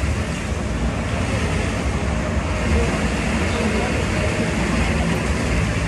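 Vehicle engine running steadily at low speed, with road and wind noise.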